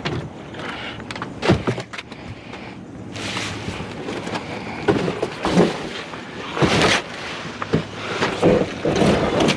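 Junk items being handled and shifted by hand: irregular knocks, clatters and scraping, rustling bursts, with one longer scrape near the middle.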